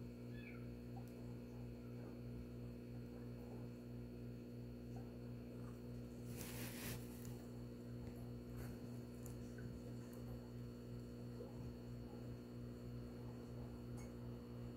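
Steady low electrical hum, with a brief rush of noise about halfway through.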